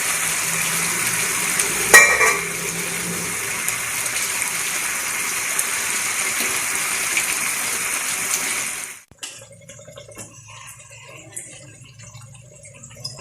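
Whole chicken in masala sizzling hard in butter in a covered non-stick pan on high flame, a steady loud hiss with a knock about 2 s in. The sizzling cuts off suddenly about 9 s in, leaving a low hum and faint clicks.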